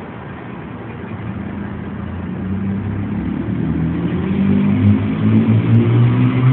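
Air Hogs Switchblade toy helicopter's small electric rotors buzzing, the pitch wavering and the buzz growing louder from about two seconds in as it comes close.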